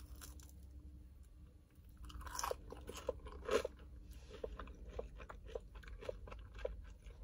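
A person chewing fries with ketchup: soft crunching and many small mouth clicks, starting about two seconds in, over a faint low hum.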